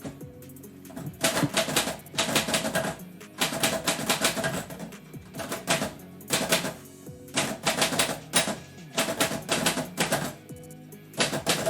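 Typewriter typing in quick runs of keystrokes, each run lasting a second or more, separated by short pauses.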